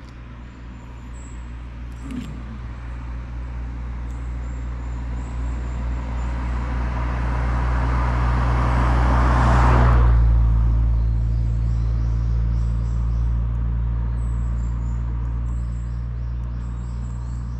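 A motor vehicle's engine passing by. It builds slowly for about ten seconds, peaks, then falls away more quickly, over a steady low hum that runs throughout.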